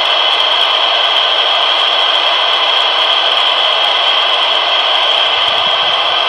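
Steady FM static hiss from a handheld ham radio's speaker, its squelch open with no signal coming in. It cuts off suddenly at the very end.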